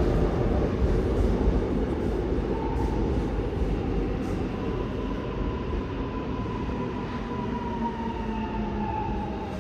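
Seoul Subway Line 1 electric train rolling into a station and slowing, a low rumble that gradually fades. From about three seconds in a faint steady whine rises above it and drops slightly in pitch near the end.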